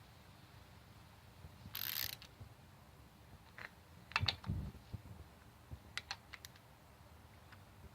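Scattered metal clicks and clinks of hand tools and head bolts as cylinder head bolts are threaded in and snugged down on a Chevy 3.1 V6, with a short hissing scrape about two seconds in.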